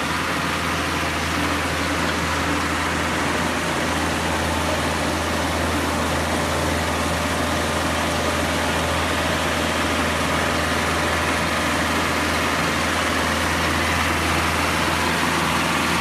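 Ride-on trencher's engine running steadily as the machine digs a trench, a constant low engine hum with no changes in speed.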